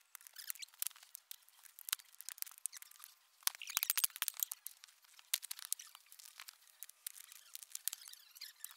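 Rocks clicking and scraping against each other as they are set by hand in a ring for a fire pit, with a quick cluster of heavier strikes from a pick chopping into the soil beside the ring about three and a half seconds in.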